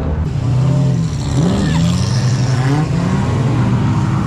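A car engine revving as the car pulls away, its pitch climbing about a second and a half in and then holding with small rises and dips.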